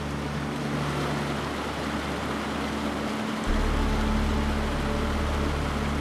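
A shallow mountain creek running over rocks, a steady rushing hiss, under background music with low held notes that change about halfway through.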